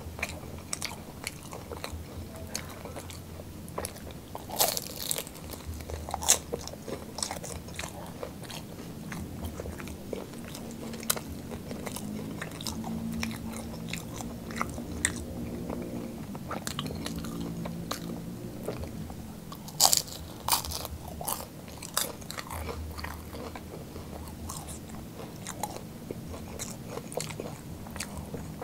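Crunching bites into a crisp fried ham-and-cheese roll and chewing, with sharp crackles that come loudest about five seconds in and again about twenty seconds in.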